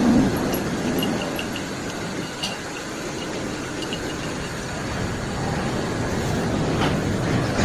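Machine-shop machinery running with a steady mechanical rumble, with a few faint light ticks.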